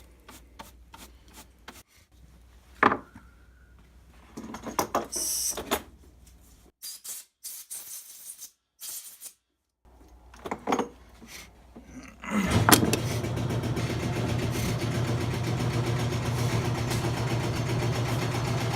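Light clicks and knocks of parts being handled. About two-thirds of the way in, a motor-driven machine starts with a sharp click and runs steadily with a low hum, likely used to clear metal shavings out of a drilled chainsaw clutch cover.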